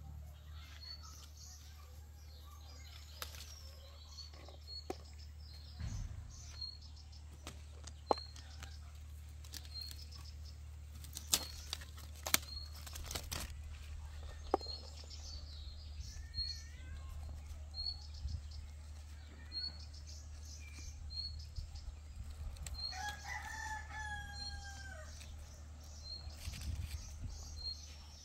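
Farmyard sounds: a small bird gives a short high chirp over and over, about once a second, and a rooster crows late on. A few sharp knocks come in the middle.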